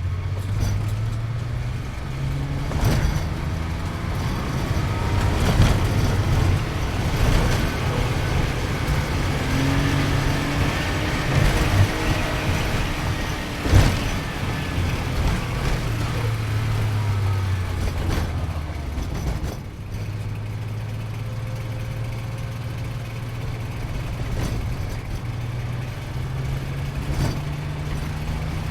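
Sports car engine running hard on a run, its pitch rising and falling repeatedly with gear changes, with several sharp knocks, the loudest about halfway through.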